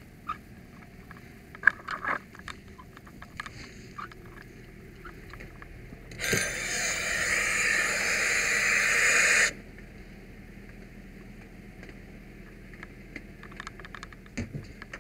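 A loud, steady hiss of compressed air starting about six seconds in and cutting off suddenly some three seconds later, amid light clanks and knocks of firefighting gear being handled.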